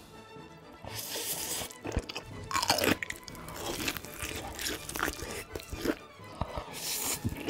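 A person taking crunchy bites of food and chewing, close to the microphone, with background music underneath.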